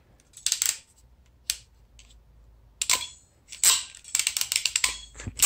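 Ratcheting wire crimper clicking as a butt connector is fitted and crimped onto a power wire: a few separate clicks and handling noises, then a quick run of ratchet clicks about four seconds in.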